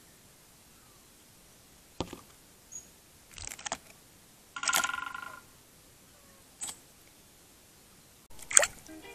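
Scattered sharp taps and clicks, with one longer scraping burst about halfway and the loudest click near the end, as a common blackbird moves about pressed against the trail camera at a water bowl.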